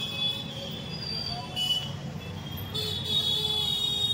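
Busy street traffic and crowd rumble with high-pitched vehicle horns tooting in short bursts, one held for about two seconds near the end.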